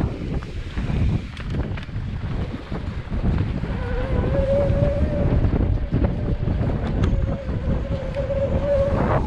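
Wind buffeting the microphone on a fast mountain-bike descent, with a steady rumble. About four seconds in a steady whining tone joins it, lasting about five seconds and ending with a brief upward sweep.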